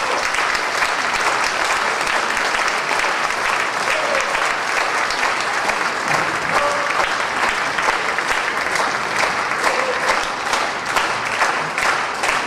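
Theatre audience applauding steadily, the applause thinning into scattered separate claps near the end.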